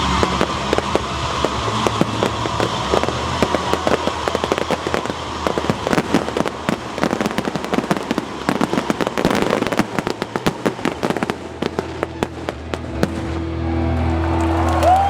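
Post-game fireworks going off in a dense run of sharp bangs and crackles over stadium music. The bangs thin out near the end as the music comes up.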